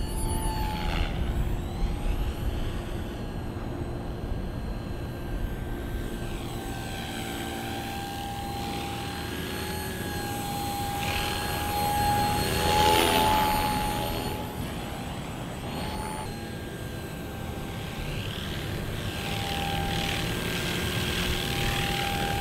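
E-Razor 450 electric RC helicopter in flight: the whine of its motor and the whoosh of its rotor blades rise and fall as it flies about, loudest as it makes a close low pass about halfway through.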